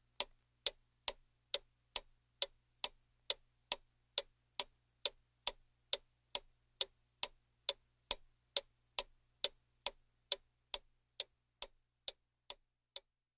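Steady, even ticking like a clock, a little over two ticks a second, fading away near the end.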